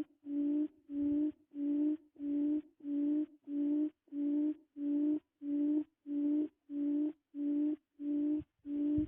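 A low-pitched tone pulsing in an even, unchanging loop, about two pulses a second.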